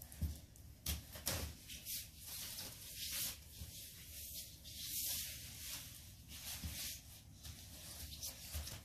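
Rustling, light clicks and knocks as dogs and a child brush against pop-up nylon play tents on a tile floor, with a few low thumps in the first second and a half and a longer rustle about four to five seconds in.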